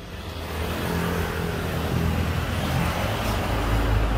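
A motor vehicle going by on the road, its engine and tyre noise swelling over the first second or two and staying loud, over a steady low hum.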